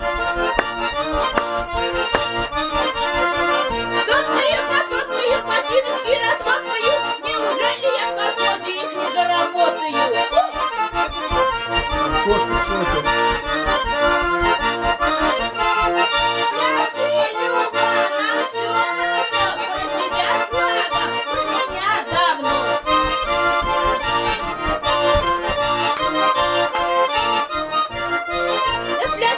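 Russian garmon (button accordion), repaired and tuned by its player, playing an instrumental tune: a melody over a steady pulse of bass and chords.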